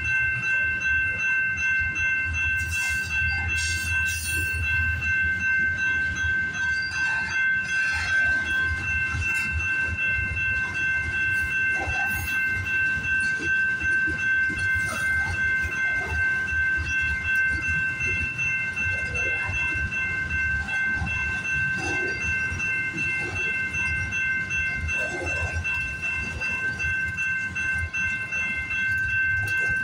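Freight train's covered hoppers and tank cars rolling past: a steady low rumble with the clatter of wheels over the rails. Over it runs a steady high ringing from the crossing's warning bell.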